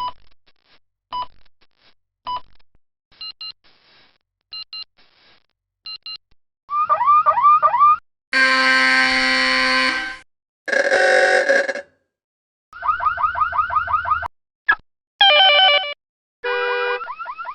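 A run of different electronic alarm sound effects, one after another with short gaps. First come sparse short beeps and paired beeps. Then rising whoop sweeps, two loud harsh buzzer blasts of a couple of seconds each, and a fast series of rising warbles. It ends with short rising and stepped tones.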